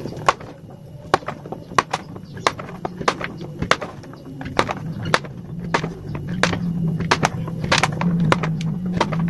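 Irregular sharp clicks and taps as a knife cuts hot glue sticks into small pieces on a wooden tabletop and the pieces drop onto it. A low steady hum underneath grows louder in the second half.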